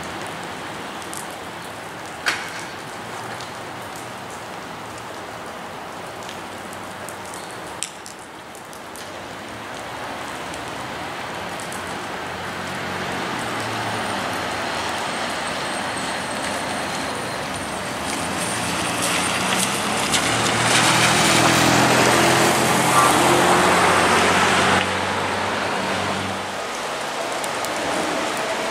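Steady rain on wet pavement, with a Norfolk Southern diesel locomotive's engine running low as it rolls by and cars passing on the wet street. The sound is loudest for a few seconds about three quarters of the way through, then drops back.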